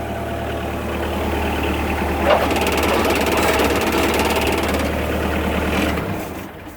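An engine running steadily, growing a little louder, with a brief click a couple of seconds in, then shutting off about six seconds in.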